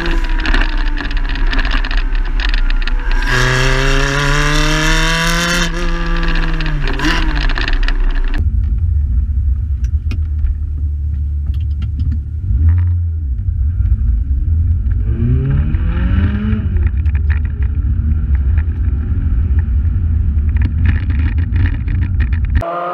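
Ferrari 360 Modena's V8 through a converted F430 exhaust, heard at the tailpipes under way: the revs fall, climb hard for a couple of seconds, then drop back. About eight seconds in the sound shifts to inside the cabin, where it becomes a deep exhaust drone with the engine note rising and falling as the car is driven through its manual gears.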